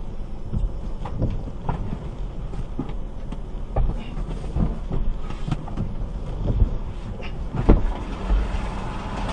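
Steady low rumble inside a car, broken by irregular knocks and thumps every second or so, the loudest near the end.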